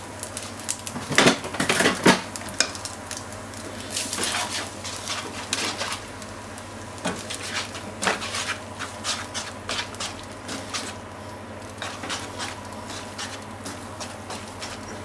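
Spaghetti being stir-fried in a frying pan: a utensil tosses and stirs the noodles with many quick clicks and knocks against the pan, loudest a second or two in, over a light sizzle.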